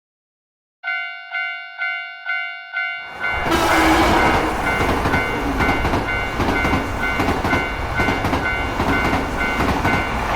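Japanese railroad crossing warning bell starts ringing about a second in, a steady ding-ding of nearly two strikes a second. A few seconds later a train passes with a loud rumble and clickety-clack of wheels, while the bell keeps ringing.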